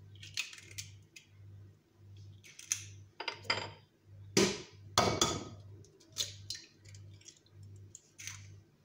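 Eggs cracked one after another on the rim of a glazed ceramic mixing bowl: a series of sharp taps and knocks, the loudest about four and five seconds in.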